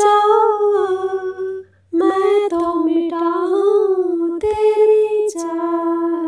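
A woman singing a slow Hindi song unaccompanied, in long held, wavering notes. The singing breaks off briefly for a breath about two seconds in.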